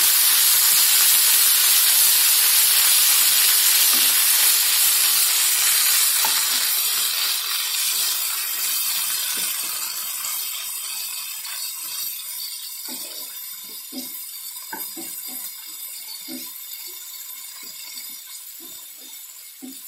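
Sukkan keerai leaves, shallots and garlic sizzling in hot oil in a nonstick pan as they are stirred with a wooden spatula; the sizzle is loud at first and gradually dies down after about seven seconds. In the second half the spatula knocks and scrapes against the pan several times.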